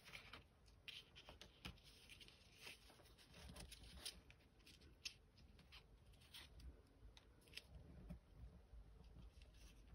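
Faint rustling and soft ticks of a paper card and twine cord being handled as a knot is tied in the cord.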